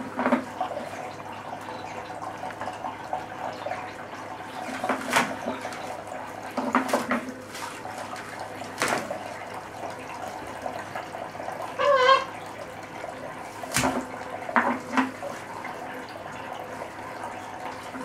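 Small indoor fountain trickling steadily, broken by irregular splashes as a green-winged macaw bathes in its basin, shaking her wings in the water. A brief wavering, warbling sound comes about two-thirds of the way through.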